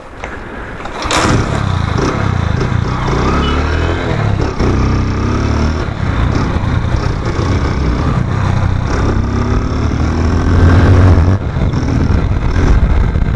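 Motorcycle engine running while being ridden, its pitch rising and falling with the throttle. A sharp knock about a second in, after which the engine is louder.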